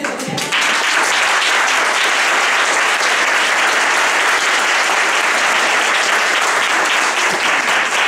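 Audience applauding at the end of a talk: steady clapping from a room of listeners, starting about half a second in.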